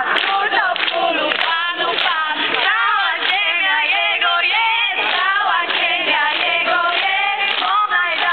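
A large group of people singing a song together in chorus while clapping their hands.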